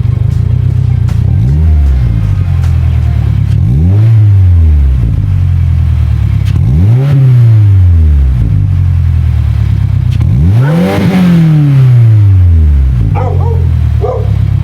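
Subaru WRX's 2.4-litre turbocharged flat-four running through a JDMuscle sport resonator midpipe, idling and blipped four times, each rev rising and falling back to idle.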